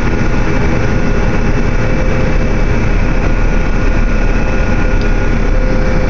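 John Deere 9750STS combine running steadily, heard from inside the cab: a constant engine and machinery drone with a steady whine. The corn head is raised for the end-row turn, so no crop is going through the machine.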